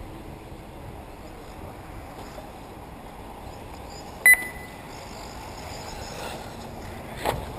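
A single short, loud electronic beep about four seconds in, over steady low background noise, with a sharp knock near the end.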